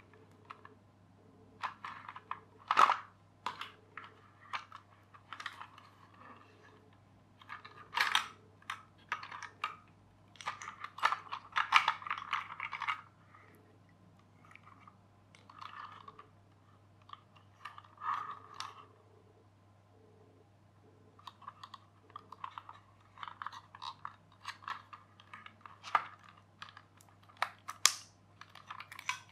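Small hard-plastic parts of a clear-plastic toy train clicking, knocking and rattling as they are handled and pulled apart, in irregular bursts with brief pauses.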